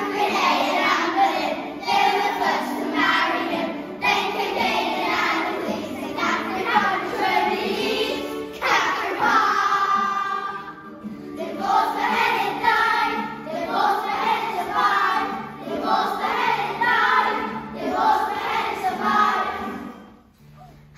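A group of young children singing a song together, phrase after phrase, with a break in the singing about eight seconds in; the song ends shortly before the end.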